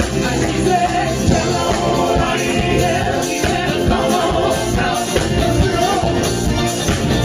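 A cover band playing a song, with singing over a steady beat.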